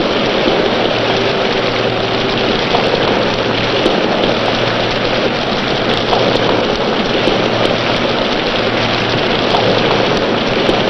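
Steady rushing hiss of rain and wind in a sea squall, with a faint low hum underneath.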